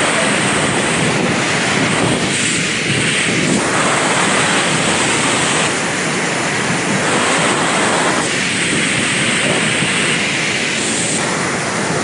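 The Devil's Throat waterfall at Iguazu Falls pouring into its gorge: a loud, steady, dense rushing noise with no break.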